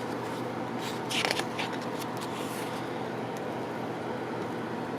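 Steady room hum with a brief rustle of paper about a second in and a softer one near two seconds, as album photo pages are handled.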